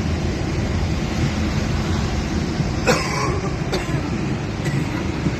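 Steady low rumbling noise, with a brief cough about three seconds in and a faint click shortly after.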